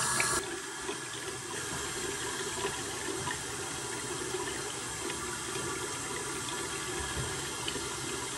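Bathroom sink faucet running steadily as hands and face are rinsed under it, a little louder for about the first half second.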